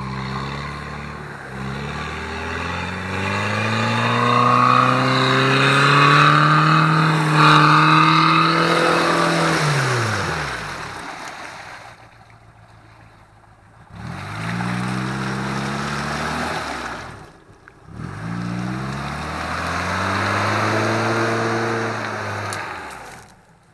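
An off-road 4x4's engine revving hard in three pulls. The first climbs in pitch for most of ten seconds before it drops away. Two shorter pulls follow after a brief lull, over a loud rushing hiss of the wheels working the ground.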